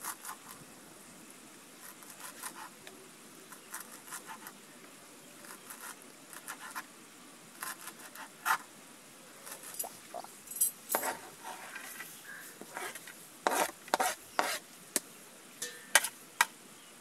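Kitchen knife chopping green herbs on a plastic cutting board: irregular sharp taps that come faster and louder in the second half. Near the end the knife scrapes the chopped herbs onto a ceramic plate.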